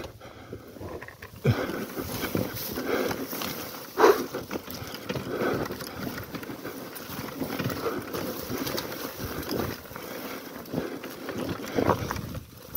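Honda Tornado dirt bike rolling down a steep, rocky grass slope: irregular knocks and rattles from the knobby tyres and suspension jolting over rocks and tussocks, with sharp jolts about a second and a half in, about four seconds in and near the end.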